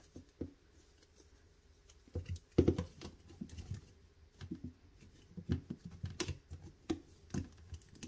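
Plastic clicking and rattling as slatted panels of a portable washing machine's spin-dryer basket are pushed into their notches by hand: irregular short clicks and knocks, the loudest about two and a half seconds in.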